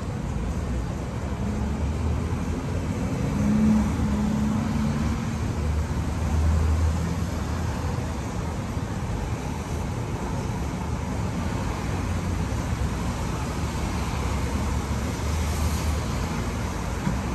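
City street traffic: a steady hum of passing cars and buses, tyres and engines. The engine hum swells as heavier vehicles pass, loudest around four and seven seconds in.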